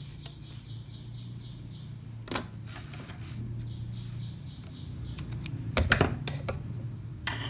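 Metal scissors snipping yarn and being handled: a few sharp metallic clicks, the loudest a quick cluster about six seconds in.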